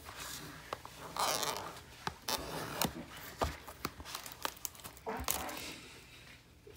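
Plastic shrink wrap being torn and crinkled off a cardboard trading-card blaster box. It comes in several rustling bursts, the longest about a second in and again near five seconds, with sharp handling clicks and taps on the box between them.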